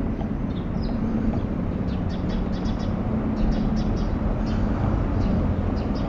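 Steady low rumble of traffic with bursts of quick, high, sharp taps: a woodpecker pecking at a tree.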